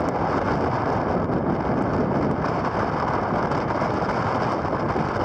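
Steady rush of wind buffeting the microphone of a camera riding on a bicycle going fast downhill.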